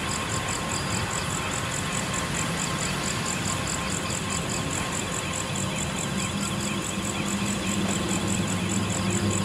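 The engine of a heavy box-girder launching machine runs steadily, a constant low hum. A fast, regular high-pitched pulsing sits over it.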